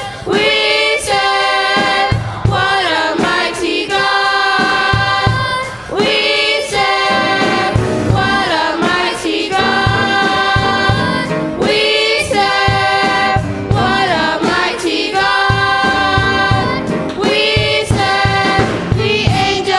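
Choir singing a gospel song, with long held notes in harmony.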